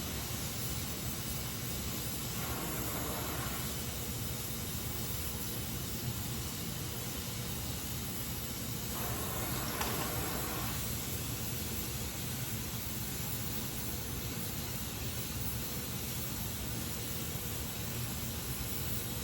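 Gas welding torch flame hissing steadily while aluminum is flame welded, with two brief swells in the hiss, one a few seconds in and one about halfway.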